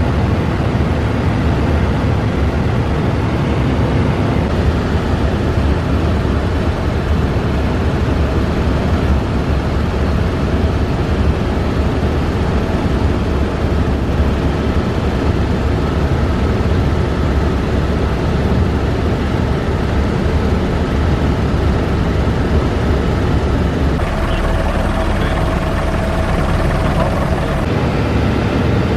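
Helibrás AS350 B3 Esquilo helicopter's turbine and main rotor running steadily in cruise flight, heard loud from inside the cabin. A steady whine comes in for a few seconds near the end.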